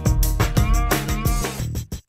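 Upbeat music with a drum beat and heavy bass, breaking into short choppy hits near the end.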